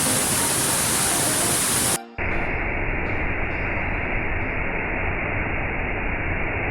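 Steady rushing of a waterfall or fast-running water, full and hissy for about two seconds, then a brief dip and a cut to the same kind of rush sounding duller and muffled.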